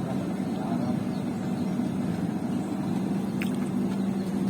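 Steady drone of a running motor or engine, holding an even pitch throughout.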